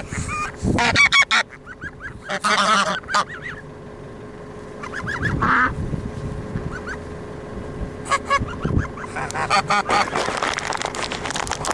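A small flock of domestic geese honking in short bursts: at the start, about two and a half seconds in, and briefly around five and a half seconds. Several geese call over one another for the last couple of seconds.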